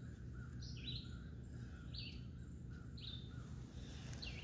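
A bird repeating short, high, falling chirps about once a second, faint over a low steady background rumble.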